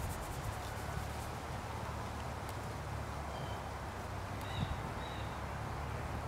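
Outdoor ambience: a steady low rumble with a few faint bird chirps around the middle and a couple of light taps.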